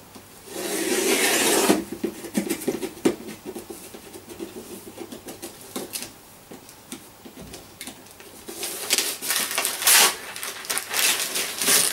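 Gift wrapping paper being picked at and pulled off a long boxed present: crinkling and rustling with many small crackles, with one loud rustle about a second in and a longer spell of louder rustling in the last few seconds as the paper comes away.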